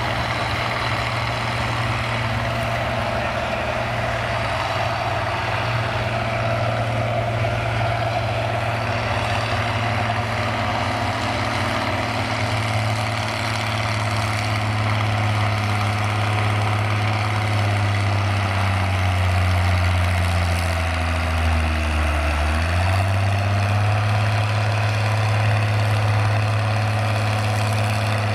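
Farmall tractor's diesel engine pulling hard under load against a weight-transfer sled, a loud steady drone. About three-quarters of the way through, its pitch sags and then jumps back up.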